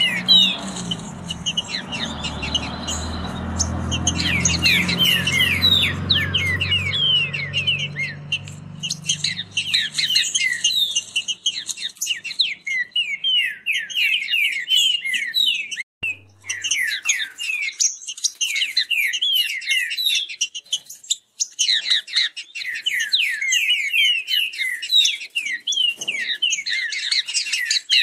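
Green-winged saltators (trinca-ferro) singing fast, overlapping whistled phrases without pause. A low hum runs underneath for the first third.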